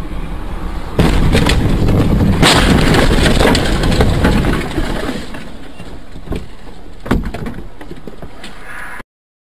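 Car crash picked up by a dashcam microphone: a sudden loud impact about a second in, followed by several seconds of loud crash noise that fades, then two sharp knocks. The sound cuts off suddenly just before the end.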